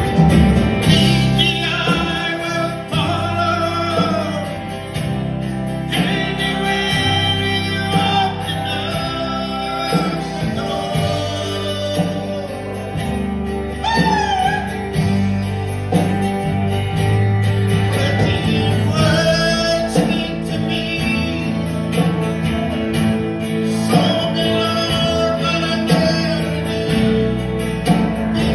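Live gospel song played by a small church band: a man sings lead over strummed acoustic guitar, bass and drums, in a large room.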